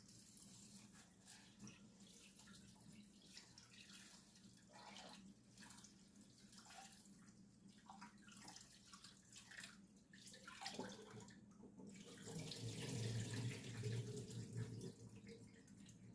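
Faint water running from a kitchen tap into a sink, growing louder about twelve seconds in for a few seconds before easing off.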